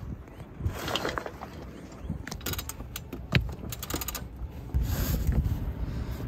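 Mainsail being hoisted: clicking and rattling of the rigging hardware, with a quick run of clicks a little past two seconds in and a sharp click about three and a half seconds in.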